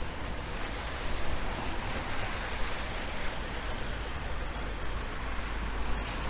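Road traffic on rain-wet streets: a steady hiss of tyres on wet tarmac over a low engine rumble, with a car passing close near the end.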